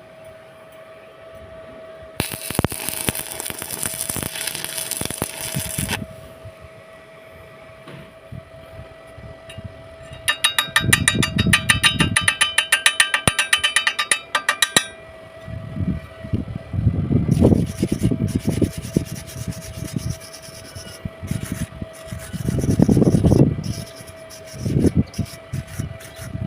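Scraping and rubbing sounds in several spells, one of them a fast run of regular strokes, over a steady hum.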